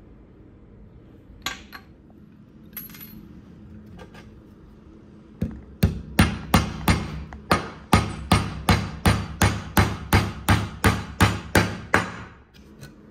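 A nail being driven into a wooden block by a steady run of about twenty sharp metal-on-metal strikes, about three a second, each with a short ring. A couple of sharp clicks come a few seconds before the strikes.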